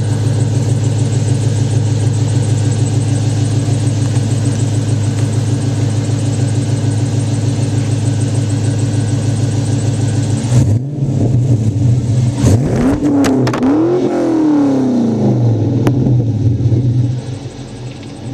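2004 Pontiac GTO's LS1 5.7-litre V8 breathing through long-tube headers, catless mid-pipes and a full aftermarket exhaust, idling steadily and loud at the tailpipes. About two-thirds of the way in it is revved twice, the pitch rising and falling each time, before it settles back to idle.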